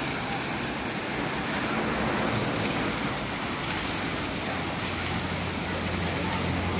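Steady rush of water churning around a current-driven wooden water wheel as it lifts water in its buckets. A low steady hum comes in over the last couple of seconds.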